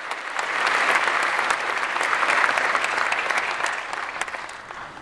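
Congregation applauding, swelling and then dying away near the end.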